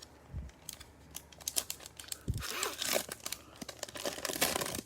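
A trading-card pack wrapper being torn open and crinkled by hand, a run of crackles that thickens into two dense bursts of crinkling in the second half. Two dull thumps come earlier, as things are set down on the table.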